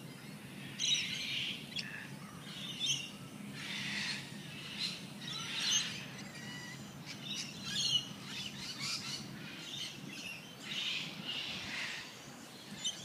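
Birds chirping: short, scattered chirps and calls at irregular intervals, a few of them louder than the rest.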